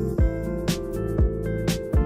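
Background music with a steady beat: a deep kick drum about twice a second under held chords, with a sharper hit about once a second.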